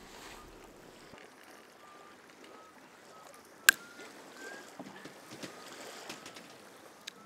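Wood campfire crackling in a small metal fire stand, with scattered small snaps and one sharp, loud pop about halfway through.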